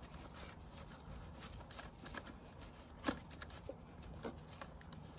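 Faint handling noises from a gloved hand unscrewing the long bolt that holds the foam air filter in a Kawasaki KX85's airbox: scattered small clicks and rubs, with one sharper click about three seconds in.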